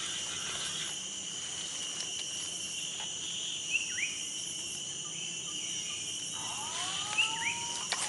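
Steady high-pitched drone of forest insects, with short bird chirps about four seconds in and again near the end, and a couple of rising whistled bird calls shortly before the end. A single sharp click comes right at the end.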